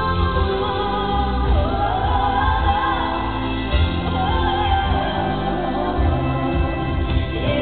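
A female pop singer singing a slow ballad live over instrumental backing, with sustained low notes under the wavering vocal line.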